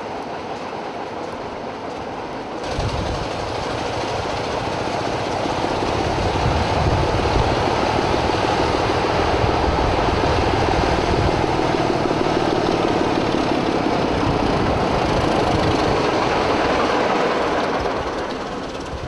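Diesel locomotive hauling a train of coaches past at close range. Its engine rumble steps up sharply about three seconds in and grows louder as it approaches, then eases near the end as the coaches roll by.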